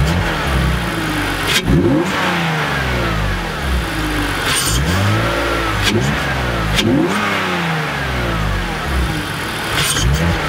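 A 2001 BMW E46 325Ci's 2.5-litre straight-six, blipped from idle about four times, pitch rising and falling with each rev. The induction noise comes through an open cone-filter Mishimoto cold air intake.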